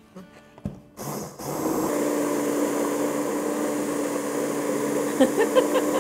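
Hand (immersion) blender switched on about a second in, its motor running steadily as the blade purees cooked tomatoes in a pot. There are a few brief louder sounds near the end.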